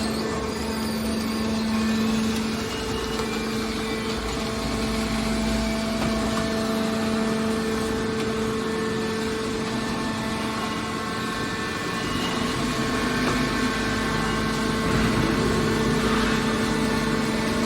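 Hydraulic metal press baler running, its power unit's motor and pump giving a steady hum with a few held tones.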